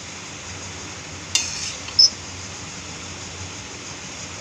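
Metal spatula clinking against a stainless-steel kadhai while tossing noodles: two sharp clinks about a second and a half and two seconds in, the second louder with a brief metallic ring, over a steady hiss.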